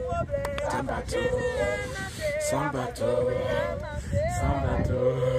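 A small group of men and women singing a hymn together without accompaniment, holding long notes.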